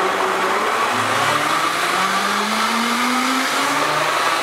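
Vitamix blender running, churning thick pancake batter, with its motor pitch climbing steadily for a couple of seconds in the middle.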